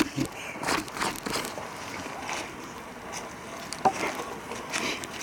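Footsteps rustling and crunching through dry forest leaves, in irregular short bursts a few times a second, with a sharp click about four seconds in.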